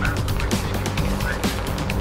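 Background music with a steady beat of about two beats a second over a sustained low bass.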